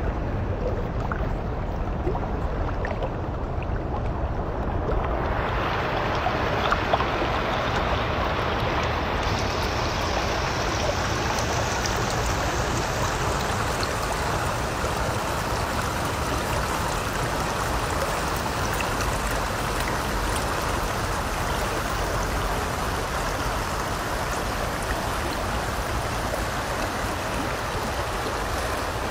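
Steady rushing of stream water flowing over rocks, which grows brighter and fuller about five seconds in.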